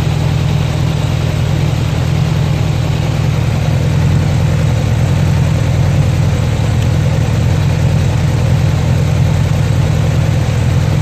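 Honda Goldwing GL1200's flat-four engine running at a steady idle, heard close to its exhaust pipes.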